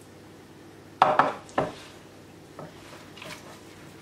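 Gloved hands kneading bulgur köfte dough in a glass mixing bowl, with two sharp knocks against the glass about a second in, then softer handling sounds.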